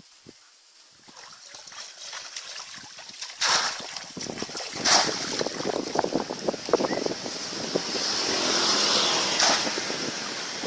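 Water splashing and sloshing: quiet at first, then sharp splashes about three and a half and five seconds in, followed by a longer, louder spell of splashing near the end.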